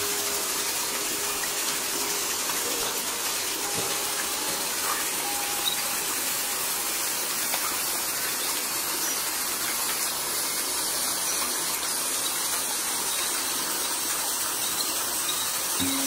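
Steady rush of a tall waterfall, its water falling down a cliff and splashing onto rocks below.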